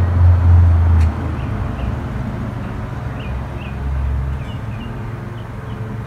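Blue Slate heritage turkey tom drumming as he struts in display: a deep hum that cuts off about a second in and comes back briefly around four seconds in. Short faint high chirps are scattered through.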